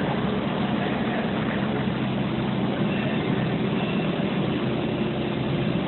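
An engine or heavy machine running steadily with a low, even hum and no change in pitch or speed.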